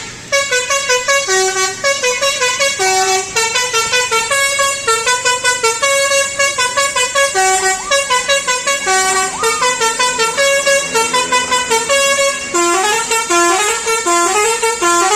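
A bus's telolet basuri multi-tone air horn playing a fast melody of short notes that step up and down in pitch, almost without a break, cutting off suddenly at the end.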